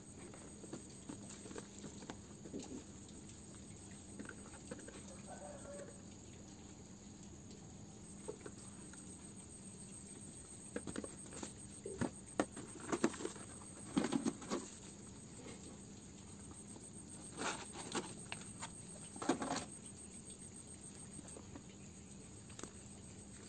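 Clear plastic cap case and foil bubble wrap being handled: scattered light crinkles, taps and rustles, with two busier spells of handling in the second half.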